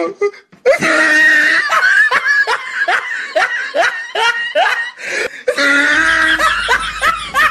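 A person laughing hard in a long run of rhythmic laughs, about three a second, each falling in pitch, with a short break partway through.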